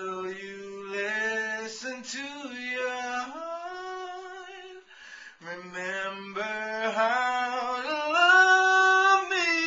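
A man singing alone with no audible accompaniment, in two phrases. Each phrase starts on a lower note and climbs to a high note. The second phrase ends on a long held high note near the end, the loudest part.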